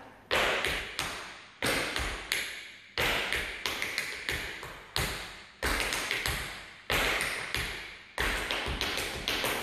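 Tap shoes striking a wooden floor in a rhythmic tap routine: sharp metal taps in quick groups of two to four, each group ringing briefly in a large room.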